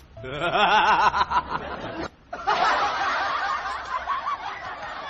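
Laughter: high, wavering snickering in two long runs, broken by a short pause about two seconds in.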